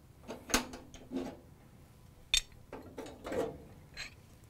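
Gas range burner caps and burner heads knocking and clinking as they are lifted off the cooktop and handled: a handful of separate sharp clinks, some ringing briefly, the sharpest about half a second in, near the middle and near the end.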